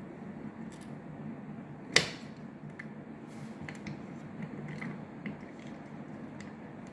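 Smart-lock parts being handled and fitted: one sharp click about two seconds in, then scattered small taps and clicks, over a low steady hum.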